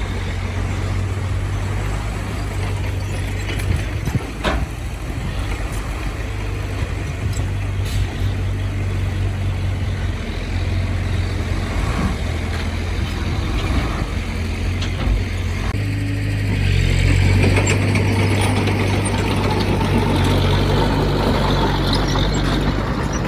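Heavy diesel earthmoving machine running, a steady low engine drone with a few sharp metallic knocks; the engine grows louder about two-thirds of the way through.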